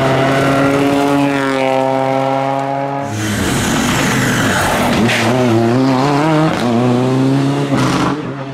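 Rally car engines at racing speed on a tarmac stage, in successive clips. A small car's engine holds a fairly steady note for about three seconds. Then comes an abrupt change to a Citroën C3 rally car whose engine revs rise and fall as it is driven through the corner.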